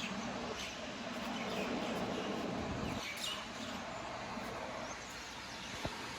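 River water flowing with a steady rush, with a few short bird chirps over it. A brief click near the end.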